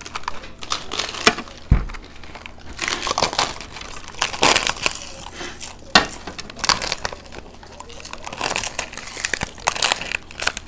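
Crisp, oversized fuchka (panipuri) shells cracking and crunching as several people break them open and bite into them, an irregular run of crackles, with a low thump about two seconds in.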